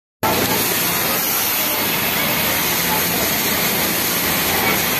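Steady, even din of a garment factory floor: industrial sewing machines running together as a continuous hiss with a low hum underneath.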